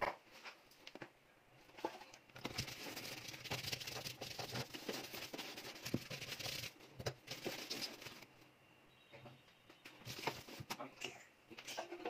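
Hand scrubbing on the plastic floor of a Sharp washing machine's tub around the drive shaft, in stretches of rapid rasping strokes with a few light knocks. The scrubbing pauses for a couple of seconds near the two-thirds mark, then picks up again briefly.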